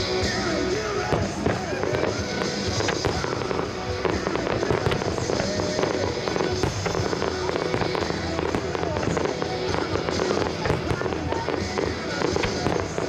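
Fireworks bursting in a rapid, irregular series of bangs and crackles, with music playing underneath.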